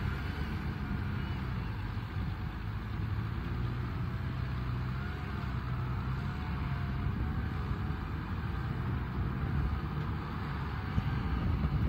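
Kubota M6040SU tractor's diesel engine running steadily as the tractor drives its rear rotary tiller through mud, with a faint wavering whine above the engine note.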